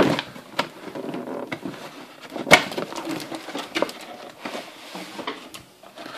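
Cardboard toy box being opened by hand: scattered clicks and taps with rustling and scraping of cardboard, the sharpest snaps right at the start and about two and a half seconds in.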